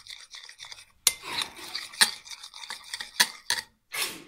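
A spoon stirring a runny mix of shampoo, shaving foam and boric acid in a glass bowl, scraping and clinking against the glass. There are several sharp clinks and a few short scrapes.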